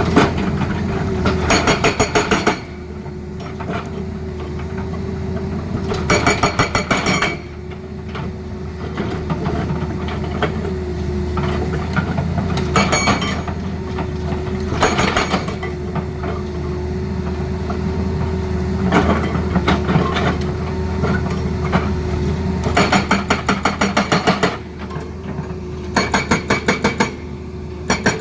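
Tata Hitachi excavator's hydraulic breaker hammering in short bursts of rapid blows, about seven times, over the steady running of the excavator's diesel engine.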